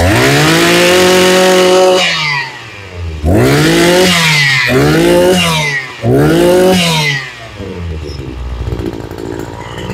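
Maruyama KC20NX brush cutter engine revved by hand on the throttle: one high rev held for about two seconds, then three shorter rev-ups and drops, then settling to a steady idle. The seller says it sounds like new.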